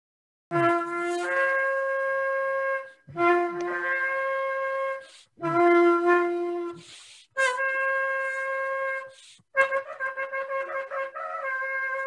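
A long, twisted-horn shofar is blown in four long blasts of about two seconds each. The first three start on a low note and jump up to a higher one. Then comes a quick run of short, broken notes that settles into a held high note near the end.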